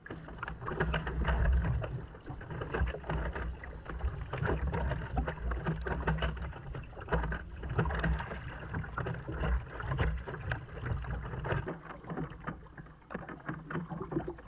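Kayak paddle blades dipping and splashing in the sea, with water lapping against a plastic kayak hull, in an irregular run of strokes over a steady low rumble.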